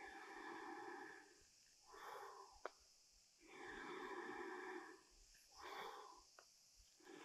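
A woman breathing deeply and rhythmically as she repeats squats, a longer breath and a shorter one in each cycle of about three and a half seconds. Two sharp clicks, about two and a half seconds and six seconds in, the first being the loudest sound.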